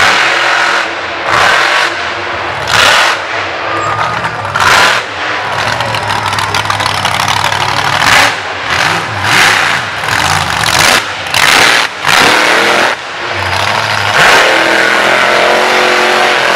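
Mega truck engine revving in short, repeated throttle bursts, then held at full throttle in a long loud run near the end as the truck drives through a mud bog pit.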